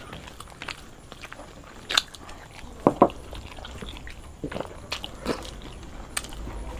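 Two people eating paratha with dum aloo by hand: chewing, wet mouth smacks and the soft tearing of flatbread, with scattered short clicks, the sharpest a pair about three seconds in.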